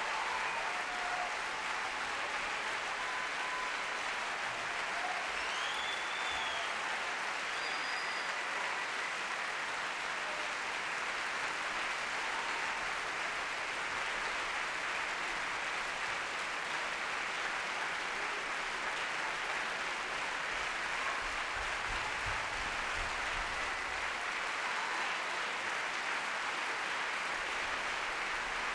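Large audience applauding steadily in a theatre.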